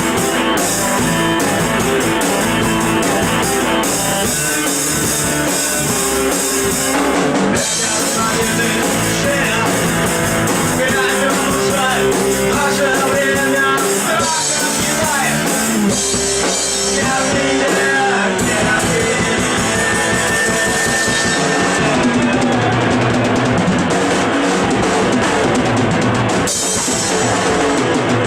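Rock music played by a band with a drum kit and guitars, loud and steady.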